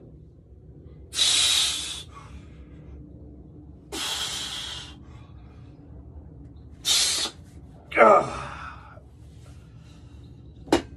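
A man's forceful, hissing exhalations as he presses a weight plate in a chest exercise: three breaths a few seconds apart, then a strained grunt that falls in pitch about eight seconds in. The breaths and the grunt are the sound of effort on each repetition.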